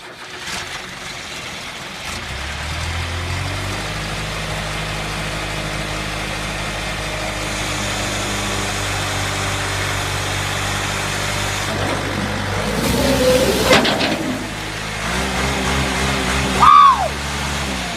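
John Deere 410D backhoe loader's diesel engine running steadily, with the revs stepping up a few seconds in. About 13 s in there is a loud rush as the bucket load of water and ice pours out. Near the end comes a brief loud cry that falls in pitch.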